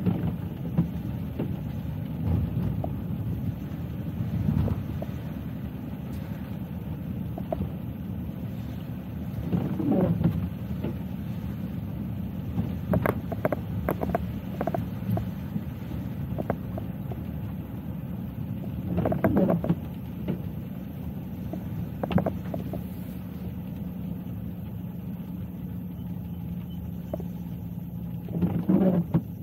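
Car driving on rain-wet city streets: a steady low rumble of road and engine, with a few short, louder knocks and rattles now and then.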